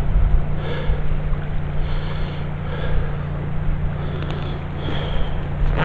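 A person breathing audibly, a breath every second or so, over a steady low rumble.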